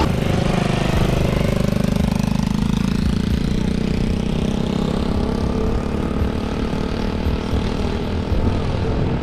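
Small quad bike engine running steadily as the ATV is ridden along sand.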